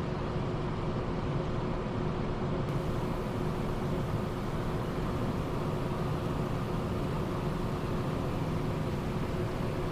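Steady cockpit noise of a Cessna Citation Sovereign business jet in descent: an even rush of airflow and engine hum with a faint steady tone running through it.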